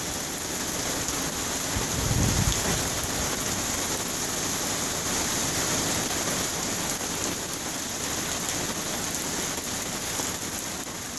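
Heavy rain pouring down steadily in a downpour, with a brief low rumble about two seconds in.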